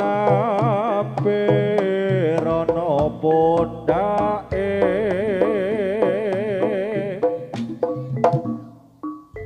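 Jaranan music from a gamelan ensemble: a melody held in long notes with heavy vibrato, over steady drum and gamelan percussion strokes. It thins out and drops quieter near the end.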